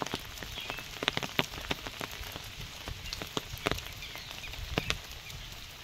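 Rain falling, with drops tapping irregularly on the cloth umbrella canopy just overhead: a steady hiss broken by a few sharp ticks a second.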